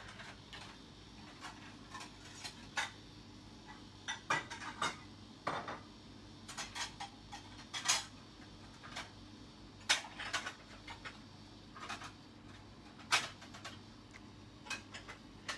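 Wooden spoon knocking and scraping against the sides of a large stainless steel stockpot while stirring a thick curry sauce, in irregular clicks and knocks. A faint steady hum lies underneath.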